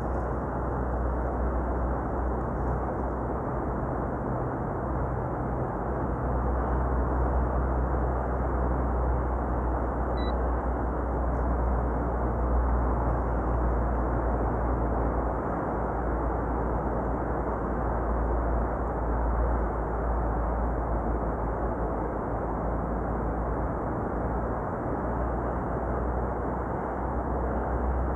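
Steady rushing noise of sea surf and wind, with a deep rumble underneath that swells gently now and then.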